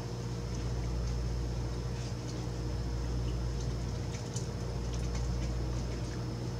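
Steady low mechanical or electrical hum, with faint scattered clicks and ticks over it.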